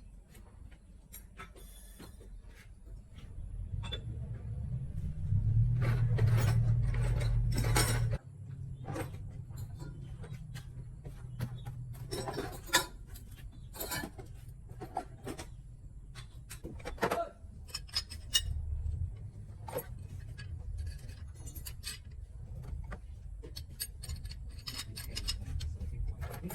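Metal tools and parts clinking and knocking at irregular moments. A low hum swells under them a few seconds in and cuts off suddenly after about four seconds.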